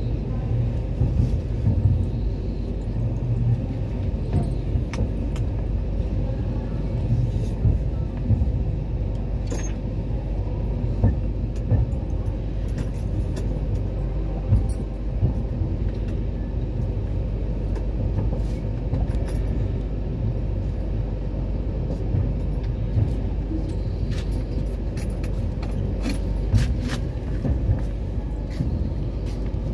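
Railway station ambience: a steady low rumble with scattered short clicks and knocks over it.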